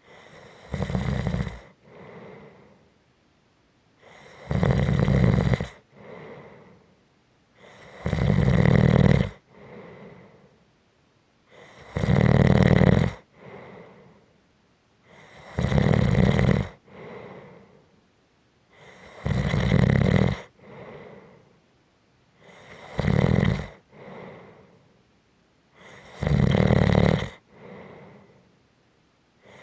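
A person snoring in slow, even breaths: a loud snore about every three and a half seconds, each followed by a softer breath out, with short quiet pauses between.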